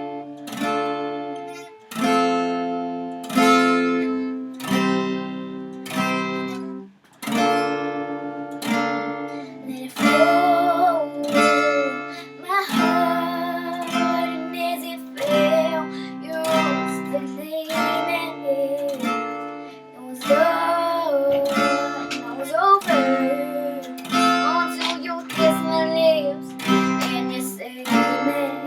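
Acoustic guitar strummed and picked, playing a repeating chord progression as a song's intro.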